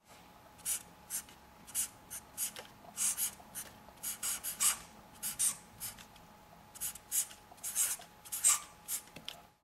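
Felt-tip marker pen scratching across a white surface as words are hand-lettered, in short quick strokes at an uneven pace. A faint steady hum lies underneath.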